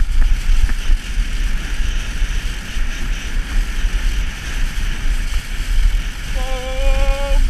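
Wind buffeting the microphone over the rumble and hiss of a GT snowracer's skis sliding fast over spring snow on a downhill run. Near the end a voice calls out one long held note.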